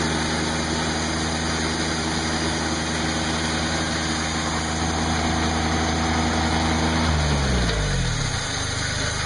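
Portable sawmill's Kubota engine running steadily; about seven seconds in, its pitch falls away as the engine slows at the end of a cut.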